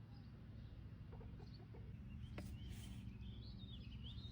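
Faint bird chirps, a few short calls in the second half, over a quiet low outdoor rumble with a few faint clicks.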